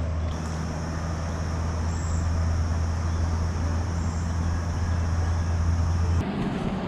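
A steady low hum under a constant rushing noise, cutting off suddenly about six seconds in.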